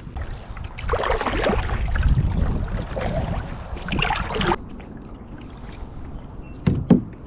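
Double-bladed kayak paddle dipping and pulling through lake water, splashing for several seconds, over a low wind rumble. A couple of sharp knocks near the end.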